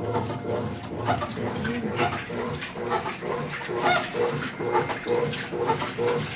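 Brastemp Ative 10 kg top-loading washing machine agitating its load in the rinse cycle. The motor and agitator make a pulsing, grunting hum that repeats about two to three times a second.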